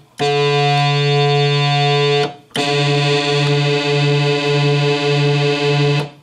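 Oberheim OB-SX analog synthesizer sounding a held note twice, with a short break about two seconds in and a wavering beat in its tone. This is the voice card that had been switched off for sounding really, really bad, out of calibration.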